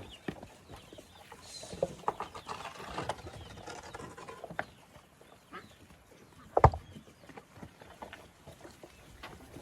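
Free-range pigs moving about with scattered crackles and knocks, and one sharp knock about two-thirds of the way through.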